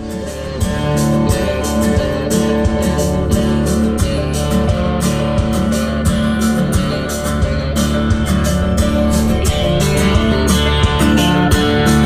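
Guitar-led stock music with a steady beat playing loudly through a boat's Fusion marine stereo and Bluave marine speakers, the volume turned up in the first half second.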